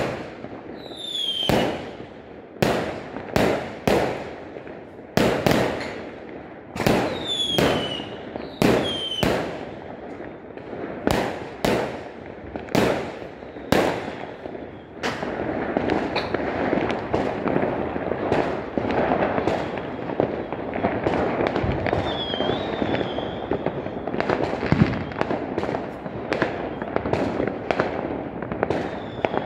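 Aerial fireworks display: a series of sharp bursts, one every half second to a second, a few with a short falling whistle. About halfway through the bursts merge into a dense, continuous crackle and rumble of many shells.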